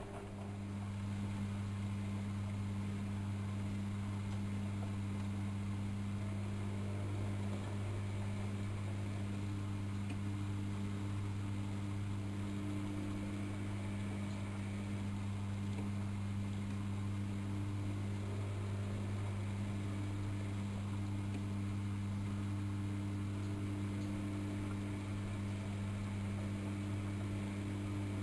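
AEG Electrolux Lavamat L6461 washing machine partway through a 95 °C boil wash, giving a steady low electrical hum over a faint hiss that sets in right at the start and holds level throughout.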